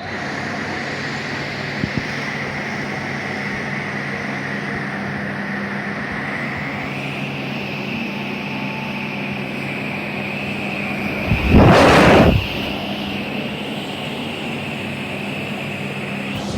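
Electric air blower running steadily: a continuous motor whine over a low hum, the whine stepping slightly higher in pitch about halfway through. Near the middle a louder rush of noise lasts about a second.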